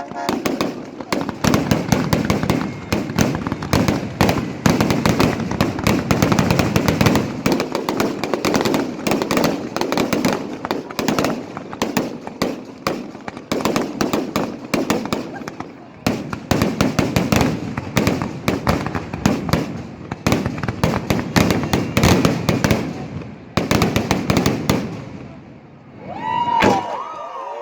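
Fireworks going off in a fast, continuous barrage of bangs and crackles that thins out and stops about 25 seconds in.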